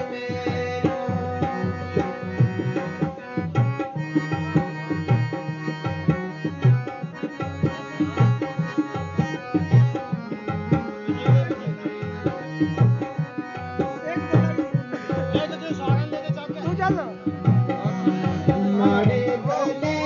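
Harmonium playing held chords and a melody over the steady rhythm of a hand drum, an instrumental passage of a live Gojri–Pahari folk song.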